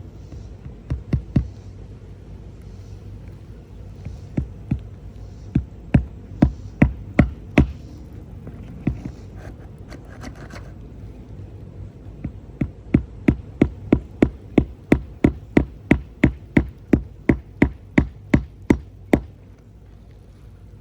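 Hammer nailing down a replacement roof shingle: a few scattered blows at first, then a steady run of about three strikes a second that stops near the end.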